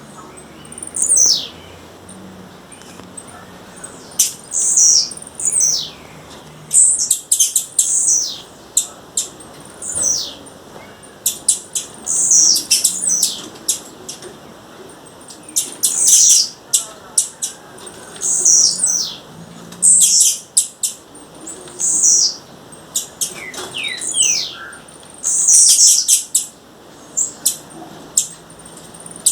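Female blue-black grassquit (tiziu) calling: short, high, downward-sliding notes repeated every second or two, with quick runs of sharp clicks between them.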